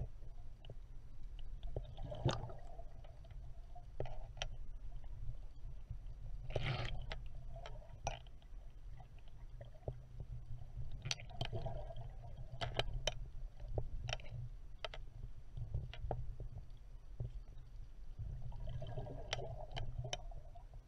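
Water moving around an underwater microphone: a steady low rumble with scattered sharp clicks and ticks, and a few louder washing swells about 2, 7, 12 and 19 seconds in.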